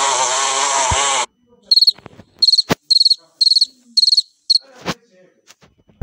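Recorded bumblebee buzzing, which stops about a second in, followed by a cricket chirping: six short, high chirps at a steady pace. A sharp click comes near the end.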